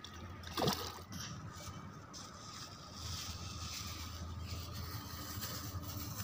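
Steady wind rumble on the microphone over faint water noise, with one brief splash just under a second in as a fish thrashes at the water's surface.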